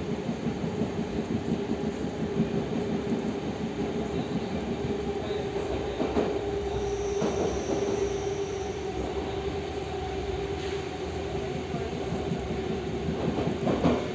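Cabin noise inside a moving commuter train: the steady rumble of wheels on track with a constant humming tone over it. A faint high wheel squeal comes in midway, and a few sharp knocks are heard, the loudest near the end.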